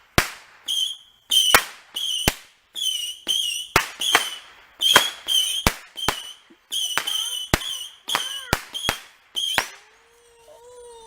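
Backyard consumer fireworks going off in a rapid series of sharp bangs for about ten seconds, each bang followed by a short high whistle. The series stops near the end.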